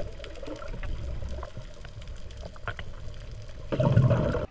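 Water heard underwater through a submerged camera: a low muffled rumble with scattered sharp clicks, and a louder rush of water for the last second or so.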